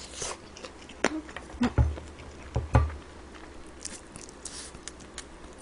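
Eating sounds at a table: mouth noises of chewing, with scattered clicks and taps of utensils against dishes, two of them heavier with a dull thump about two and three seconds in.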